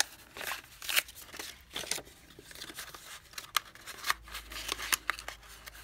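Paper rustling and crinkling as it is pressed and creased into an Altoids tin, with scattered light clicks and taps.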